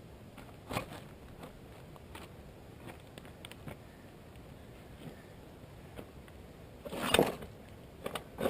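Scattered scuffs, knocks and scrapes of a stalled motorcycle being wrestled upright on rocky ground, engine off, with one louder, longer scrape about seven seconds in.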